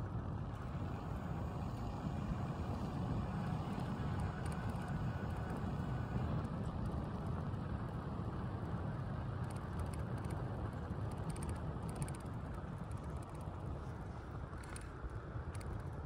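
Steady wind buffeting the microphone and tyre noise of a bicycle rolling along a concrete freeway, with faint clicks in the second half.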